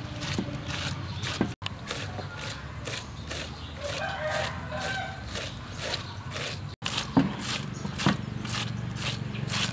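Green cabbage being shredded with a hand-held blade, a rapid crisp scraping stroke about three times a second, with a couple of louder knocks near the end. A rooster crows in the background midway.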